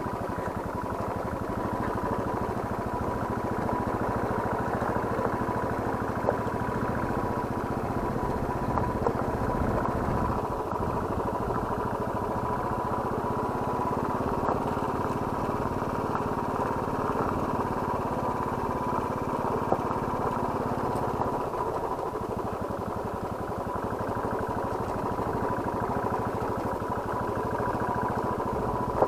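Motorcycle engine running steadily while riding, with a thin steady tone throughout and a few light knocks.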